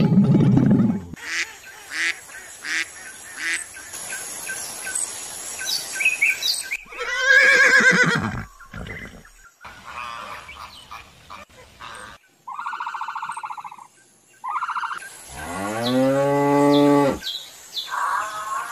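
A run of separate animal calls: a loud low call in the first second, scattered clicks, a wavering call that rises and falls in pitch, two short honks, and near the end a long lowing call that rises and then holds.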